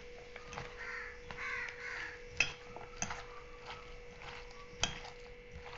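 Hand mixing a thick dal-and-leaf pakora batter in a stainless steel bowl, with sharp clicks against the bowl three times, the loudest near the middle and near the end. Harsh bird calls sound several times in the background during the first half.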